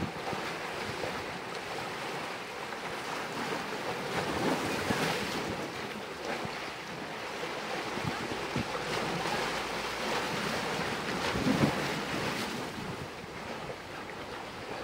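Sea water washing against a rocky shore, with wind buffeting the microphone. The wash swells louder twice, about four seconds in and again near twelve seconds.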